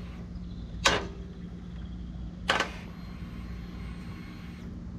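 Two sharp clicks about a second and a half apart over a steady low hum: the Harley-Davidson Iron 1200's starter clicking without cranking the engine, the sign of a battery too run down to turn it over.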